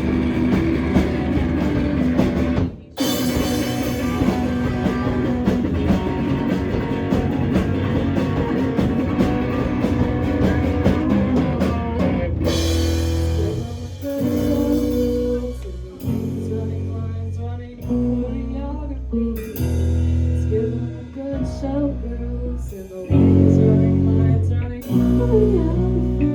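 A live rock band playing, with guitar, drum kit and singing, in short clips that cut from one to the next.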